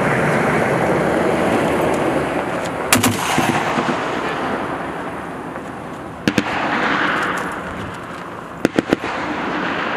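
M2 .50-calibre heavy machine gun firing short bursts: a quick pair of shots about three seconds in, another pair about three seconds later, and a three-round burst near the end, over a steady rushing background noise.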